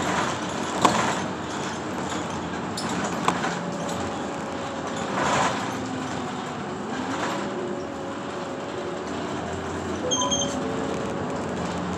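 Ride noise heard inside a moving city bus: the engine running with a drifting whine and road noise, broken by a few short rattles and knocks. A short high beep sounds about ten seconds in.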